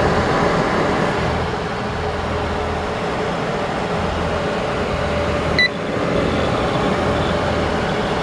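Dell PowerEdge 2300 server's cooling fans running flat out, a steady loud rush of air with a constant hum; the machine is noisy when it's on. A little past halfway through, one short high beep sounds from the server, the beep it gives during its power-on self-test.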